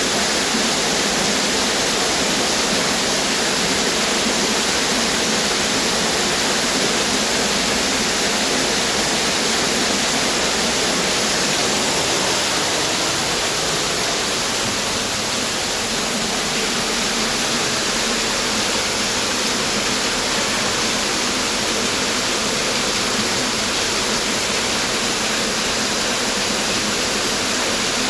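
Waterfall crashing steadily: a dense, even rush of falling water with no break.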